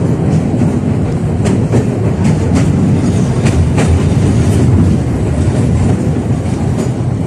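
A 71-605A (KTM-5A) tram running along the track: a steady low rumble from the wheels and running gear, with sharp clicks at irregular intervals as the wheels pass over rail joints.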